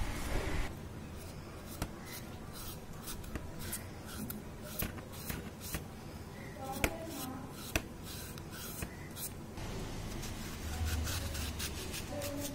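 A kitchen knife scraping and shaving the peel off a raw green plantain, in a series of short, irregular strokes, with two sharper clicks about seven and eight seconds in.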